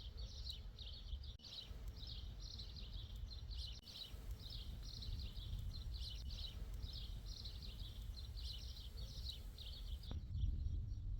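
Outdoor countryside ambience: a steady run of high chirps, about three a second, over a low rumble. The chirping stops near the end.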